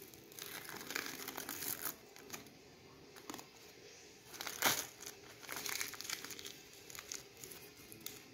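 Adhesive sheet being peeled and torn off a sticky lint roller: the paper crinkles and crackles in bursts, loudest about halfway through.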